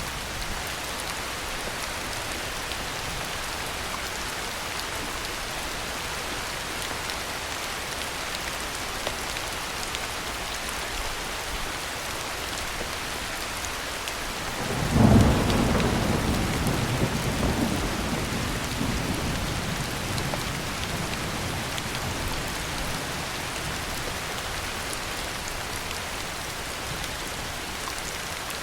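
Steady heavy rain falling, with a clap of thunder about halfway through that rumbles on and fades away over several seconds.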